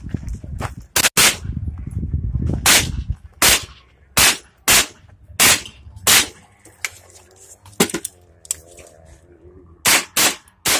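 SIG Sauer MPX pistol-caliber carbine fired in single shots, about a dozen spaced roughly half a second to a second apart, with a longer pause in the last third before two more quick shots near the end.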